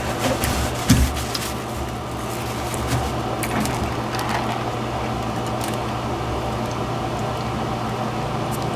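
A person chewing a mouthful of burger, with scattered wet mouth clicks, over a steady low hum; a short thump about a second in.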